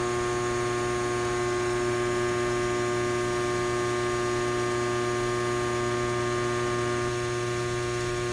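Neon bombarding transformer humming steadily under load as it drives an arc through the glass tube to heat the electrodes. A constant electrical hum with a strong buzzing overtone and a faint hiss.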